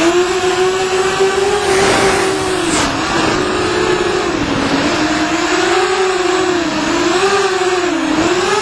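FPV quadcopter's motors whining steadily, the pitch rising and dipping with the throttle, in quicker dips over the last few seconds, over a rush of air noise.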